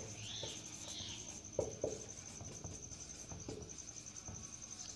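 Marker pen writing on a whiteboard: two faint squeaks of the tip in the first second, then a few light taps and clicks as the letters are formed. A faint steady high-pitched trill runs underneath.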